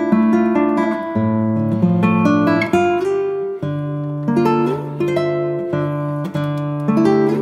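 Background music played on acoustic guitar, plucked notes in a steady rhythm.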